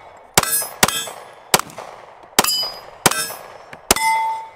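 Glock 45 MOS 9mm pistol fired six times in a steady string, about one shot every half to one second. Most shots are followed by the ringing clang of a steel target being hit.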